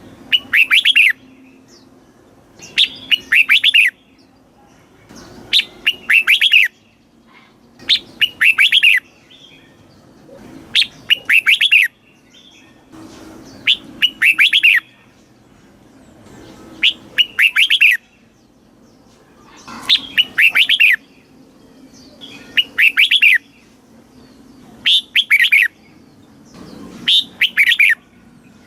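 Red-whiskered bulbul singing: a short, rapid phrase of several whistled notes about a second long, repeated roughly every three seconds, about ten times.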